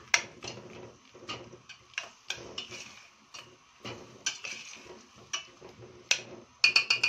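Metal spoon clinking and scraping against a stainless steel pot while stirring peas and carrots, in irregular sharp clicks with a quick run of clinks near the end.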